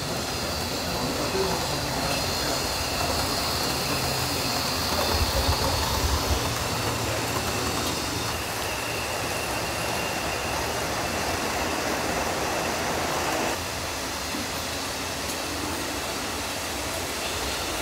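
Model trains running on a layout: a steady rattle of small wheels on track with a thin high whine. It gets a little quieter about thirteen seconds in.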